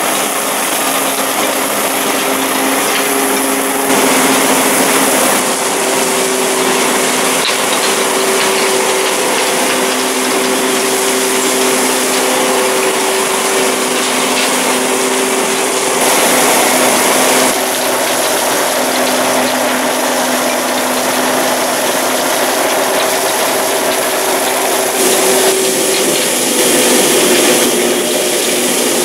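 Stoneslinger truck's slinger conveyor running and flinging gravel: a dense, continuous rattle and hiss of stones with steady machine tones underneath. The sound changes abruptly several times.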